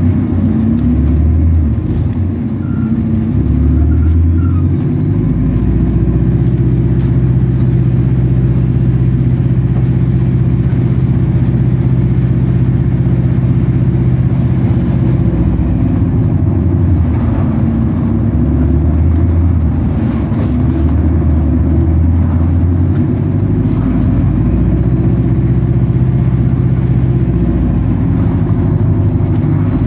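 Bus engine running under way, its low note holding steady for stretches and then dropping or rising as the bus slows and picks up speed, with road noise.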